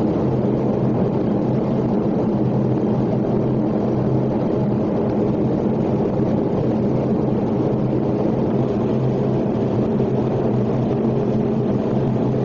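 Steady in-flight cabin noise of a jet airliner at cruise: an even rush of engine and airflow noise with a constant low hum underneath.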